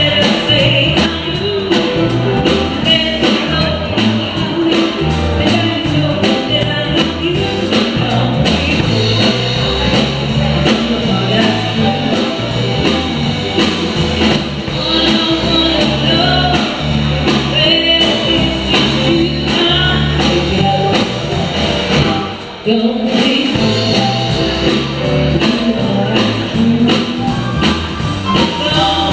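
Live band playing an upbeat rock-and-roll number with singing over a steady dance beat, the music dropping out for a moment about two-thirds of the way through.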